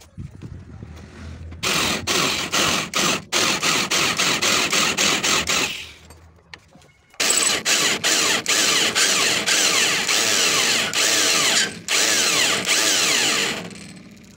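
Heavy corded electric drill with a large twist bit boring out bolt holes in a thick steel bracket on a truck chassis, the bit grinding through the metal. It runs twice for several seconds, stopping for about a second and a half near the middle, with brief dips in speed along the way.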